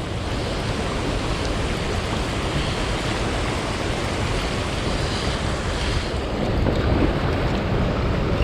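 Steady rush of a waterfall and fast-flowing river water, an even unbroken roar.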